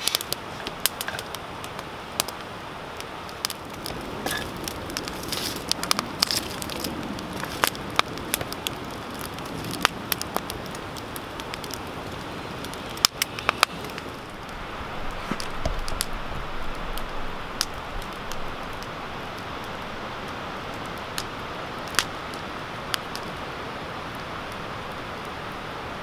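Wood campfire of freshly lit split kindling and firewood crackling and popping as it catches, over a steady rush of flame. The pops come thick in the first half and thin out later.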